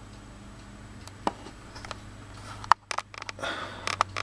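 Sharp plastic clicks and knocks from handling a 1980 Cosmo Time digital alarm clock and its controls, a few scattered at first and then a quick cluster near the end, over a steady low hum.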